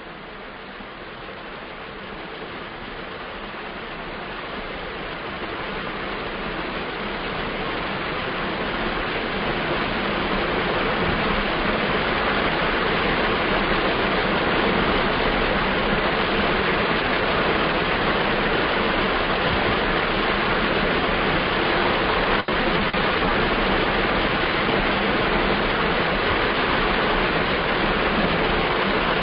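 Steady rushing noise with no distinct pitch or rhythm. It swells gradually over the first ten seconds or so, then holds level, with one brief dip a little after twenty seconds.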